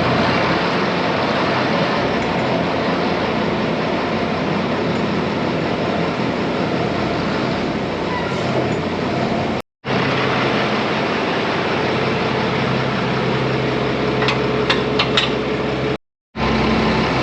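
Tractor engine running steadily under load, with a few sharp clicks near the end and two brief dropouts where the sound cuts out entirely.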